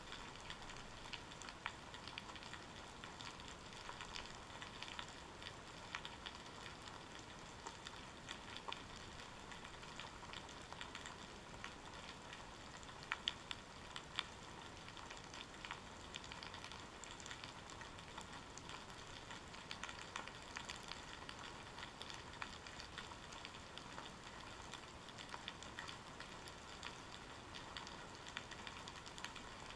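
Continuous underwater crackling and clicking, picked up through a GoPro's waterproof housing resting on a rocky, kelp-covered seabed, with a couple of louder clicks or knocks near the middle.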